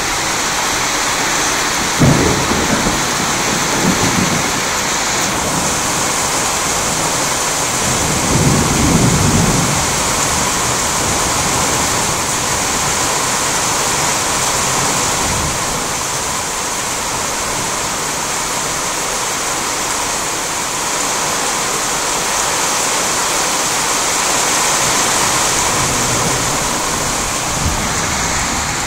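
Heavy rain falling steadily through a thunderstorm. A sudden clap of thunder comes about two seconds in, a smaller one about two seconds later, and a longer low rumble of thunder around nine seconds in.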